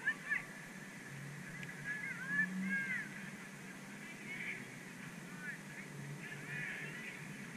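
Distant birds calling: short honking calls that come in scattered clusters of a few at a time, each call rising and falling in pitch.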